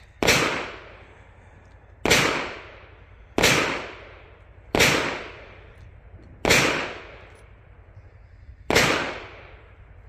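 Six gunshots from other shooters, irregularly spaced one to two seconds apart, each trailing off in a long echo.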